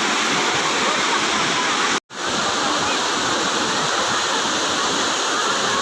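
Waterfall: a steady, even rush of falling water, which cuts out for an instant about two seconds in.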